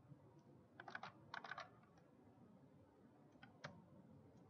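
Faint typing on a computer keyboard: two quick runs of keystrokes in the first two seconds, then a few single key presses near the end.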